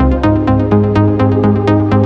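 Electronic background music with a steady beat, about four beats a second, over a sustained bass line.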